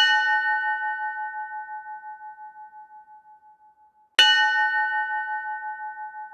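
Ship's bell struck twice, once at the start and again about four seconds in; each stroke rings out and fades slowly with a pulsing waver.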